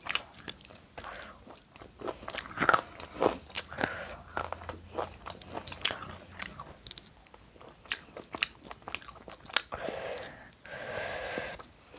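Close-up eating sounds of a person chewing chicken biryani, with a steady scatter of sharp mouth clicks and crunchy bites.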